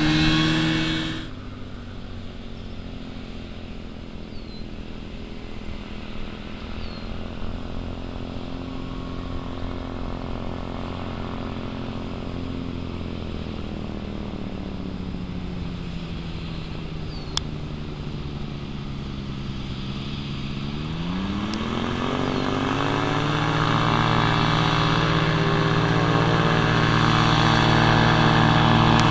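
Quicksilver MX ultralight floatplane's engine and propeller running on the water, steady and fairly even. Its level drops abruptly about a second in, then it holds a quieter, distant note that slowly sags in pitch. About 20 seconds in the engine speeds up sharply, then runs steadily louder and higher to the end as the plane comes close.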